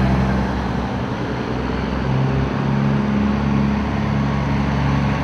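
Diesel engines of big-rig semi trucks driving slowly past in a convoy: a steady low engine drone that dips a little about a second in as one truck moves off, then rises again as the next one approaches.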